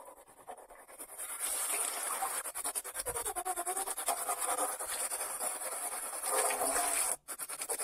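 Tap water running into a stainless steel sink and splashing as a hand sweeps it around the basin to rinse it, cutting out for a split second near the end.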